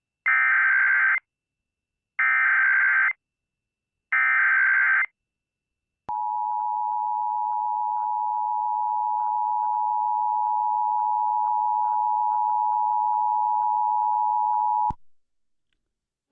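Emergency Alert System activation: three roughly one-second bursts of SAME digital header data, two seconds apart, followed by the two-tone EAS attention signal held steady for about nine seconds before cutting off suddenly.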